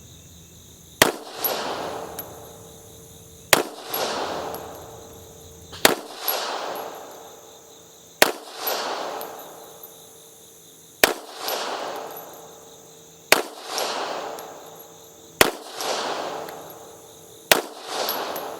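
P83 pistol firing 9mm Makarov: eight single shots about two to three seconds apart, each followed by an echo that dies away over a second or so. Crickets chirp steadily underneath.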